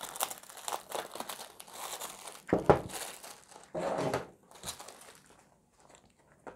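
Clear plastic shrink wrap crinkling and crackling as it is peeled off a cardboard box and crumpled, irregular, with louder crackles about two and a half and four seconds in, dying away near the end.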